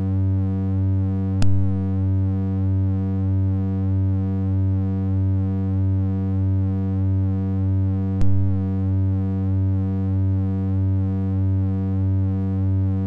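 Steady low synthesizer drone from oscillator tones rectified and mixed through an Earwig rectifying mixer Eurorack module. It carries a regular wobble in loudness about one and a half times a second. Two sharp clicks come about a second and a half in and about eight seconds in.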